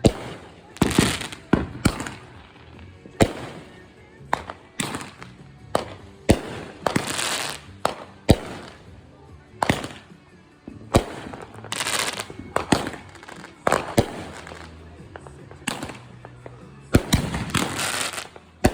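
Fireworks going off in quick succession: a string of sharp bangs, roughly one or two a second, with hissing, crackling stretches between them.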